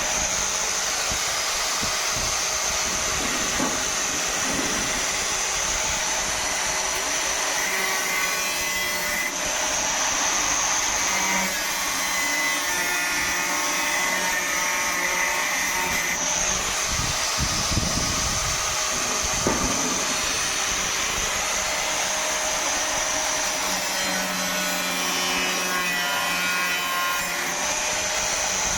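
A small power tool running steadily with a high whine as it works the material, its sound shifting a few times along the way.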